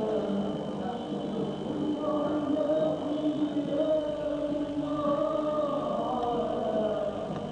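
Vocal music: voices singing in a choir-like chant, with long held notes that glide slowly up and down. A faint steady high whine lies beneath it.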